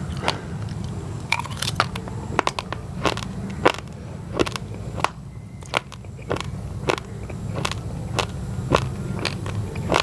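Raw, uncooked rice grains (basmati mixed with glutinous rice) being crunched between the teeth while chewing, in sharp crisp crunches about one to two a second.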